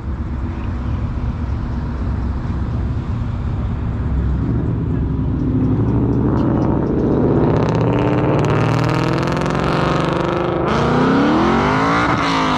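V8 car engine accelerating hard in a pull-out, its note growing louder and climbing in pitch, then rising and falling sharply near the end.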